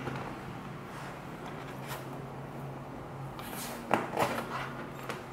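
A 24 V stop solenoid being handled and turned over on a tabletop: scattered handling knocks and rustles of its metal body, bracket and wires, with the loudest couple of sharp knocks about four seconds in. A steady low hum sits underneath.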